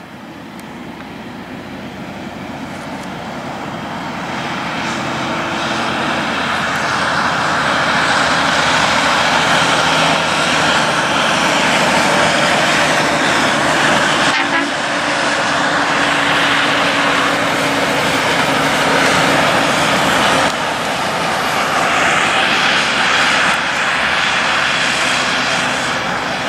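Heavy Kenworth K200 road trains hauling oversize loads drive close past, their diesel engines droning with loud tyre and road noise. The sound builds over the first several seconds, stays loud, and dips briefly twice.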